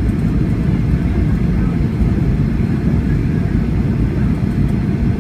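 Steady low rumble of cabin noise inside a Boeing 757 airliner during landing, with engine and airflow noise holding even throughout.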